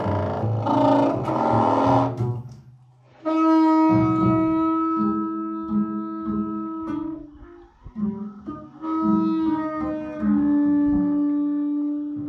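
Free improvisation on two trombones and double bass: a dense, rough brass texture for about two seconds, then after a brief drop a long held trombone note over short plucked double-bass notes, with a second long note near the end.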